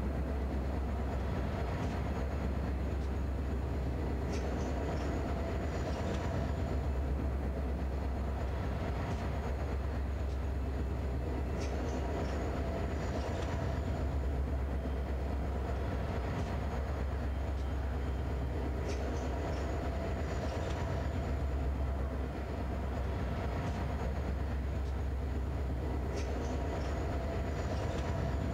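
Three G class diesel locomotives hauling a grain train at low speed, their engines giving a deep, steady drone. Light clicks sound every two to three seconds as the train rolls along.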